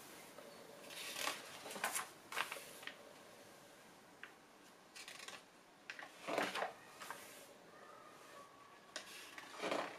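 Pages of a glossy paper magazine being turned and smoothed flat by hand: several soft paper swishes and rustles, in clusters.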